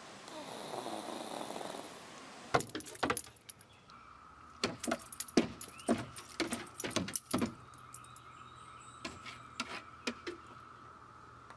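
A dog's claws and collar clicking and jingling on wooden deck boards, in rapid irregular taps from about two and a half seconds in, thinning to a few after about seven and a half seconds, over a faint steady high tone. Before the clicking, a pug's soft snoring breath.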